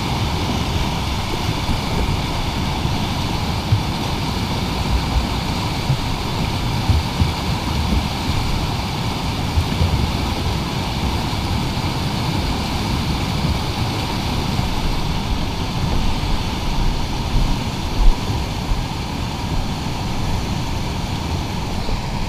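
Fast river rapids rushing over rock ledges close by, a steady unbroken rush of whitewater.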